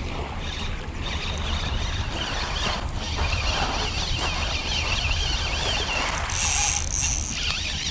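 Steady wind rumble on the microphone over small waves washing on a pebble beach, with the faint wavering whir of a spinning reel being wound during the middle seconds.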